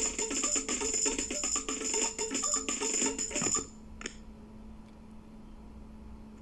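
A Sony Ericsson T300 polyphonic ringtone with a fast, busy percussion rhythm, played from a Nokia 202 phone through an external loudspeaker. It cuts off about three and a half seconds in. A short click follows, then only a faint steady hum from the speaker.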